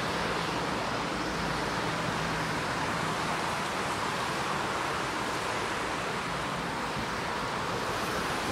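A steady, even rushing noise with no distinct events, strongest in the middle of the range.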